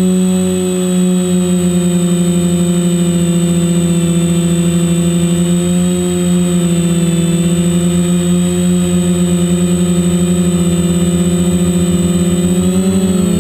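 Quadcopter's electric motors and propellers droning steadily, heard from the craft in flight, with a thin high whine above. Near the end the pitch wavers and splits as the motors change speed.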